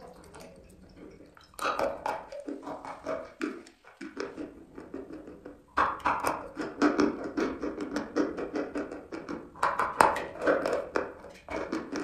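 Close-up chewing of chalk: crisp, wet crackling and clicking from the mouth and teeth. It starts about a second and a half in, stops briefly around four seconds, then goes on densely.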